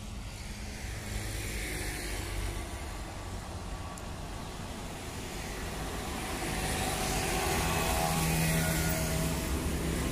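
Road traffic passing: motorcycles and a van approaching and going by, the engine and tyre noise growing louder over the second half as they come close.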